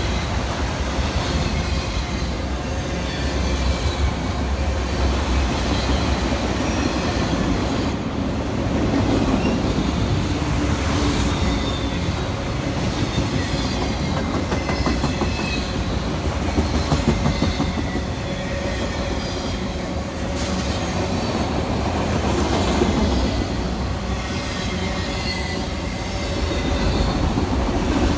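Freight train cars rolling past, a steady noise of steel wheels on the rails with faint, short high squeals from the wheels.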